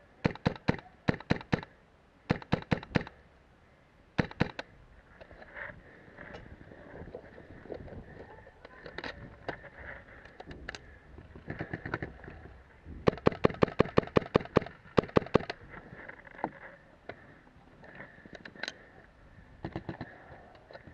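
Paintball markers firing in rapid strings of sharp pops: a quick volley at the start, a few more shots, then a dense run of about a dozen shots a little past the middle.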